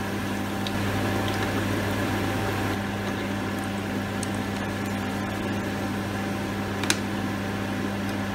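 Battered king oyster mushroom slices sizzling and bubbling in hot oil in a deep fryer during their second frying, over a steady low hum. A single sharp click about seven seconds in.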